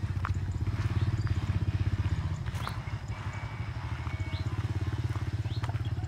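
A small engine running steadily, with short high bird chirps over it.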